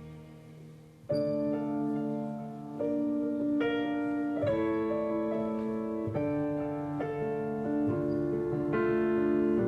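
Piano playing a slow ballad introduction: after a faint fading note, sustained chords come in suddenly about a second in, with a new chord roughly every second.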